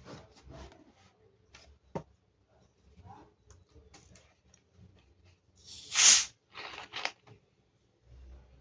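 Close-miked ASMR sounds of handling and eating pizza: scattered small rustles, clicks and mouth sounds, with a loud crackle about six seconds in and two smaller ones just after.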